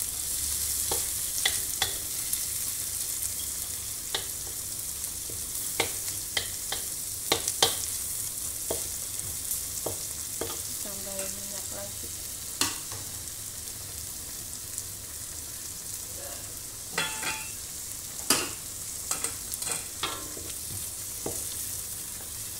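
Chopped chilies, garlic and onion sizzling in hot oil in a wok, with a steady hiss. A wooden spatula scrapes and knocks against the wok now and then as they are stir-fried.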